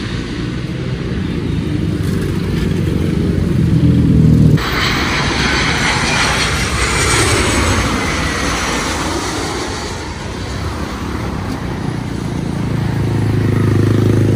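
Engines of a China Southern Airbus A321neo (Pratt & Whitney PW1100G geared turbofans) on final approach, a low steady rumble growing louder until a sudden cut about four and a half seconds in. Then the CFM56-7B turbofans of a Batik Air Boeing 737-800 coming in to land, a broad rushing roar with a high whine that dips about midway and builds again with a low rumble near the end.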